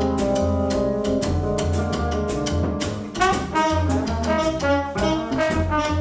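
Small jazz band playing live: trombone and tenor saxophone sounding held notes over upright bass and a drum kit keeping a steady cymbal-and-drum pattern. About three seconds in, the horns move to a new, higher line.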